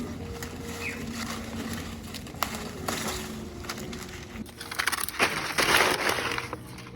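Crackling rustle of leafy plant material being handled and broken, loudest and densest from about four and a half to six and a half seconds in.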